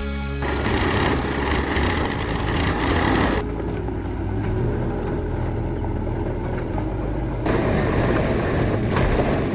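A motor vehicle engine running steadily, cut together from several takes, with the sound changing abruptly twice.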